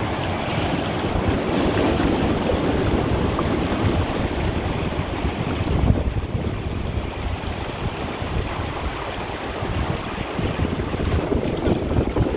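Sea surf washing and breaking over a rocky shore, a continuous rushing, with wind buffeting the microphone.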